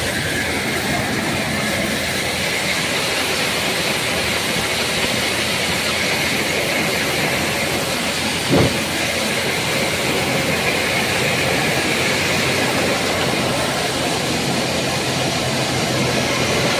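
New Vishwakarma (NVT) tractor-driven thresher running steadily while threshing guar (cluster bean) plants, separating the grain from the chaff. There is one brief thump about halfway through.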